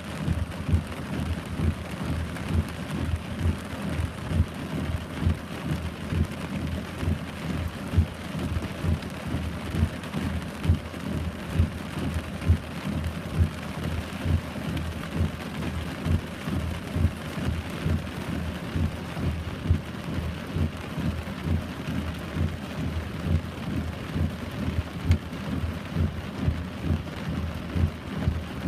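Heavy rain falling: a steady hiss with dense, irregular low thuds of drops striking a surface close to the microphone.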